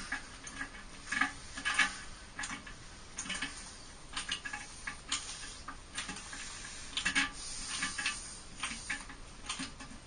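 Irregular light clicks, taps and scrapes of hand work with tools and parts, with no steady rhythm.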